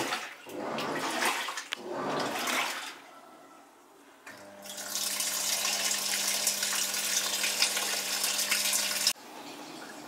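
Panasonic NA-F62B3 top-loading washing machine at work: a few surges of water sloshing about a second apart, then, about four seconds in, a steady rush of water with a steady low hum, which cuts off suddenly near the end.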